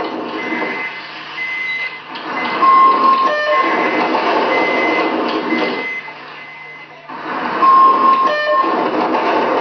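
Layered electronic sound collage played from a laptop: a dense, noisy texture with short beeping tones laid over it, which swells up, drops back about six seconds in, and swells again near the end.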